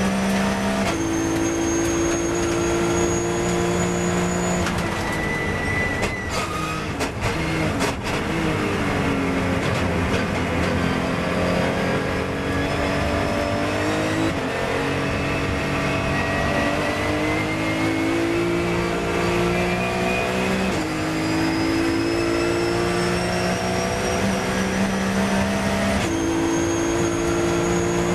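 Porsche 997 GT3 Cup's flat-six engine heard from inside the cockpit at full racing pace. It comes off the throttle and braking about five seconds in, with a few sharp clicks, then pulls hard back up through the gears with several upshifts.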